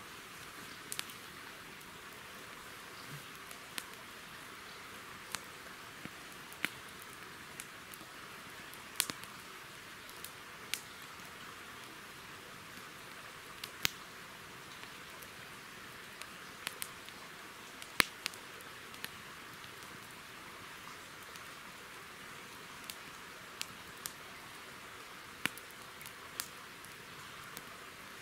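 Small wood campfire crackling, with sharp irregular pops scattered throughout, the loudest about two-thirds of the way through, over a steady hiss.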